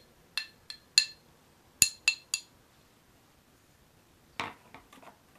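About seven sharp, ringing clinks in the first two and a half seconds, hard pieces knocked together as the carbon-fibre spar section is handled, then a few duller knocks near the end as the spar is laid into the opened wing.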